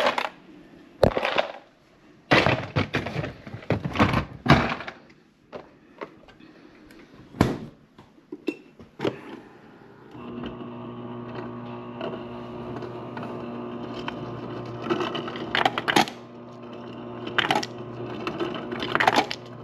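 Knocks and clicks at the Bosch refrigerator's ice dispenser. About halfway in, the dispenser's auger motor starts and hums steadily, and near the end ice cubes clatter as they drop out: the dispenser is now dispensing ice.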